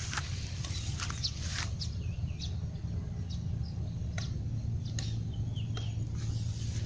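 Outdoor rural ambience: a steady low rumble with scattered short rustles and clicks, and a few brief bird chirps.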